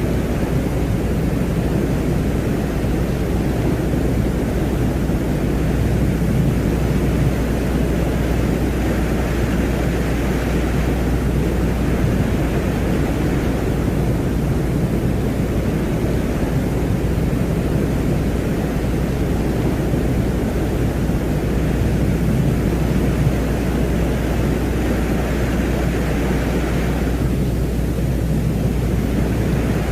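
Ambient 'sounds of Venus' space soundscape: a steady, deep rumbling noise over a constant low drone. A higher hiss swells and fades a few times and drops away sharply near the end.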